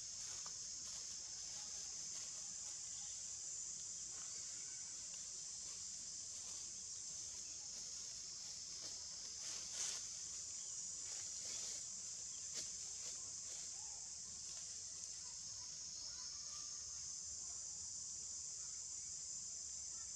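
A steady high-pitched insect chorus droning without a break, with a couple of brief faint snaps about halfway through.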